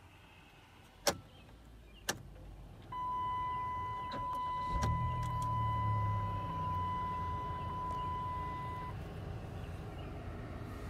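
Two sharp clicks, then a steady electronic warning tone from the dashboard about three seconds in, lasting about six seconds. About five seconds in, the 2008 Dodge Caravan's V6 starts and settles into a steady idle.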